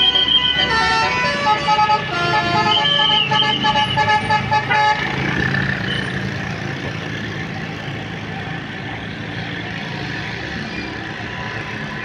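A telolet multi-tone bus horn playing a quick tune of short notes for about the first five seconds, then the tour bus's engine running steadily as the bus comes slowly up the road.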